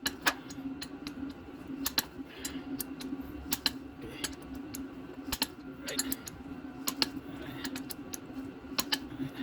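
Hand torque wrench ratcheting and giving sharp clicks, one every second or two, as bolts are tightened to 44 ft-lb, over a steady low hum.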